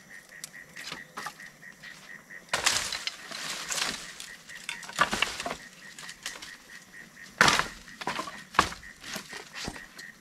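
Dry sticks and brush crackling and snapping: scattered sharp cracks, a dense rustling, crackling stretch a few seconds in, and two loud snaps near the end.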